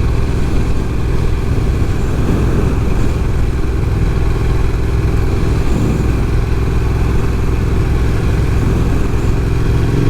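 Motorcycle engine running steadily at cruising speed, with no marked revving or gear changes.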